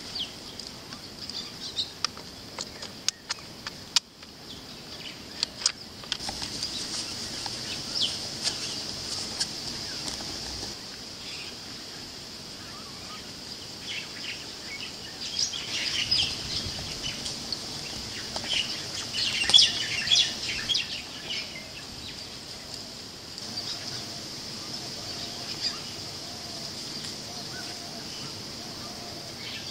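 Outdoor ambience: birds chirping in clusters, busiest around the middle, over a steady high-pitched background hiss, with scattered sharp clicks in the first several seconds.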